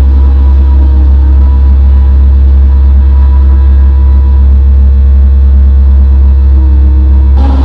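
Loud, steady electronic synthesizer drone: a deep low hum under layered sustained tones that drift slightly in pitch. Near the end it switches abruptly to a brighter, harsher texture.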